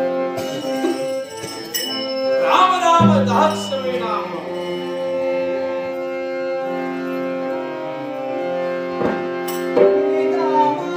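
Harmonium accompaniment playing long held chords, with a voice singing a gliding phrase about two to four seconds in.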